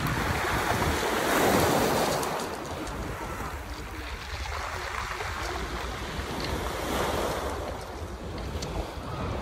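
Sea waves washing up onto a pebble beach, swelling about a second and a half in and again near the seven-second mark. Wind buffets the microphone with a low rumble.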